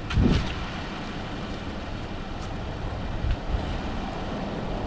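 Steady low rumbling wind noise on the microphone, with one dull thump just after the start.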